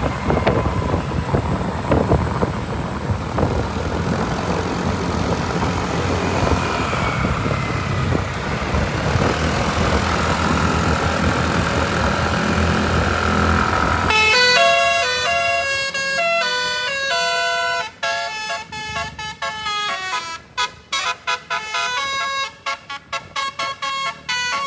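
Busy road noise with heavy vehicles passing. About fourteen seconds in it cuts off abruptly and gives way to a clean melodic tune of horn-like notes, changing pitch every fraction of a second, that soon breaks into quick stop-start bursts.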